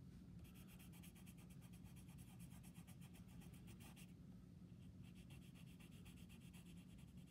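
Orange colored pencil shading on paper: faint, rapid scratching strokes in two spells, with a short pause about four seconds in.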